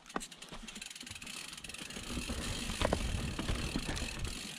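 Mountain bike riding down a dirt forest trail: tyres rolling over the ground, with fast clicking and rattling from the chain and drivetrain. From about two seconds in there is a heavier rumble with a few knocks as the bike goes over rough ground.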